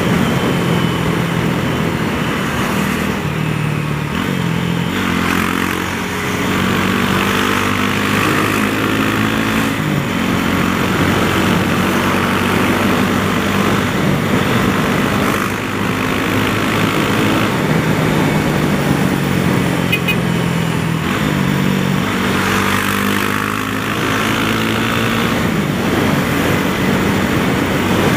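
Honda CB300R's single-cylinder four-stroke engine running under way. Its pitch rises under acceleration and drops back several times, over a steady rush of wind noise.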